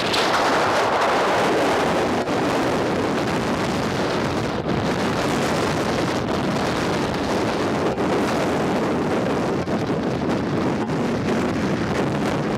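Ocean surf breaking and washing on the shore, with wind buffeting the microphone; a wave surges louder in the first couple of seconds, then the roar of the water runs on steadily.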